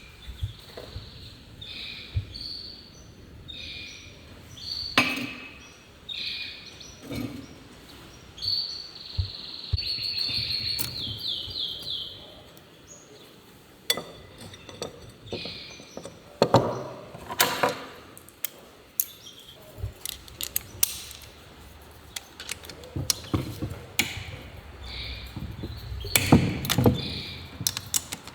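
Small birds chirping in short repeated high notes with a quick trill, through the first half. Scattered clicks and knocks follow, thickening toward the end.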